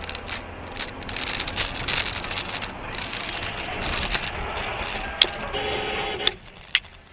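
Vehicle road noise, a steady hiss with scattered small clicks, then a few sharp knocks in the last two seconds; the noise cuts off suddenly about six seconds in.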